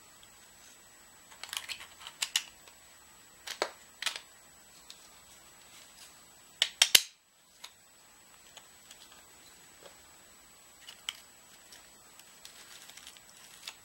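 Hard plastic clicks and knocks from handling and fitting parts of a 3D printed PLA toy crossbow, coming in scattered groups. The loudest is a quick run of sharp clicks about seven seconds in.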